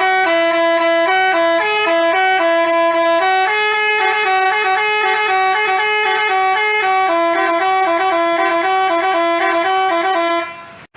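Telolet multi-tone bus horn of the Basuri type playing a quick tune of stepping notes, which stops abruptly near the end.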